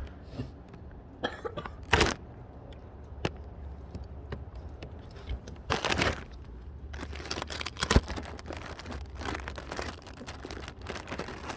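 A few short coughs from a person who has caught a chill, about two and six seconds in, among scattered clicks and crackling from something being handled close to the microphone, over a steady low rumble.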